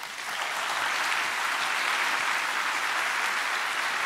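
Large audience applauding: dense clapping that builds within the first half second and then holds steady.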